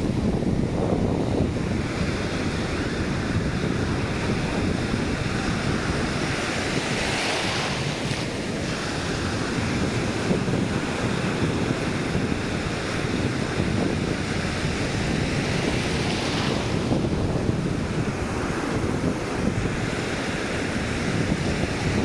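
Small surf breaking and foamy wash running over a flat sandy beach, heard from the water's edge, with wind rumbling on the microphone. The hiss of the wash swells twice, about a third of the way in and again past two-thirds.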